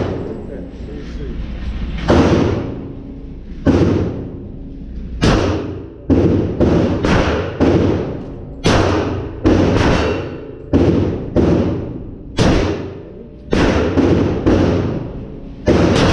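Semi-automatic pistol fired in a long string of single shots, some fifteen of them: the first about two seconds in, then one every half-second to second and a half, each with a short echoing tail from the enclosed indoor range.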